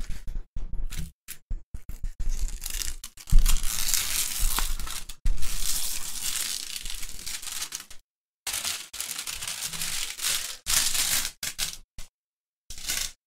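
A rolled diamond painting canvas being handled and rolled backwards to flatten it, crinkling and rustling in irregular stretches with short breaks.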